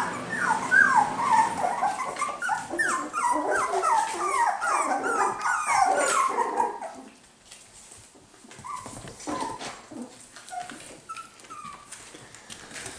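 Cockapoo puppies about five and a half weeks old, several at once, yipping and whining in a rapid string of short, high, falling squeals. About seven seconds in it quiets to an occasional yip among faint ticks and rustles.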